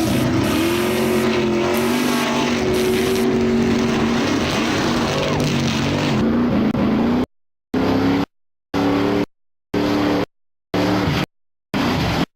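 Car sound effects: a loud engine-like drone with several held and gliding pitches. About seven seconds in it turns into short, clipped bursts about once a second, each cut off into dead silence.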